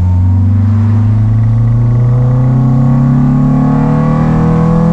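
Honda/Acura Integra's four-cylinder engine pulling hard in gear, its pitch climbing slowly and steadily for about five seconds. The slow rise is the sign of a car weighed down and sluggish under a heavy load of parts.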